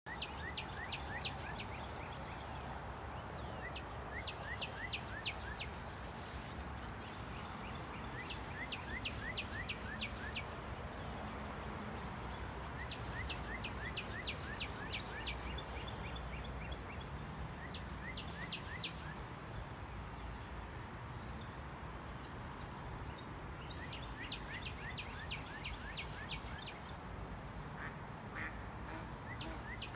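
Ducks calling in quick series of short calls, a burst every few seconds, over a steady low background rush.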